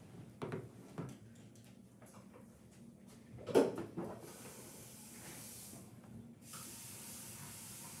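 A few light taps and a thump, then a soft hiss twice, each lasting about two seconds.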